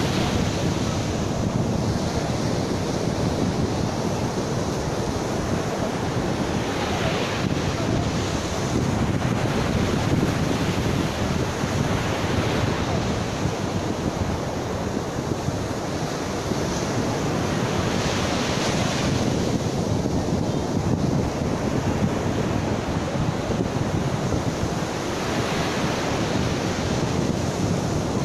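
Ocean surf breaking on a sandy beach: a steady wash with a wave crashing every few seconds. Wind buffets the microphone.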